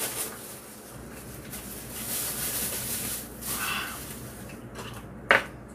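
Quiet eating sounds at the table: soft rustling and mouth noises of chewing, with one sharp click, the loudest sound, about five seconds in.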